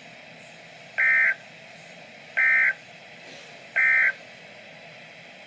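Three short, buzzy data bursts, each about a third of a second and spaced about one and a half seconds apart. They are the Emergency Alert System's end-of-message code, signalling the end of the severe thunderstorm watch alert.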